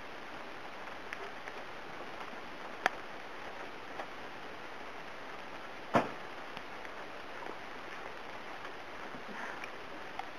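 Steady light patter of water drops, with two sharp knocks, a small one about three seconds in and a louder, deeper one about six seconds in.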